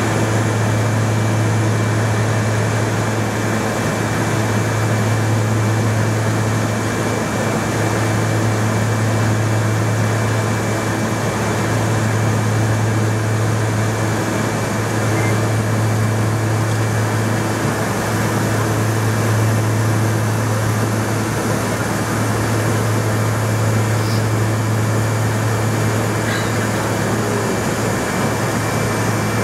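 Steady drone of a small propeller plane in level flight, heard inside the cabin: a constant low engine and propeller hum over an even rush of air.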